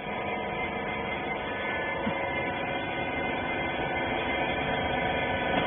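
Steady machinery hum, an even drone made of several constant tones with no strokes or impacts.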